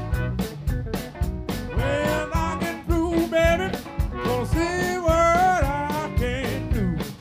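Live electric blues band playing an instrumental break: a harmonica cupped to the microphone plays a lead with bent, wavering notes over electric guitars, bass guitar and drums.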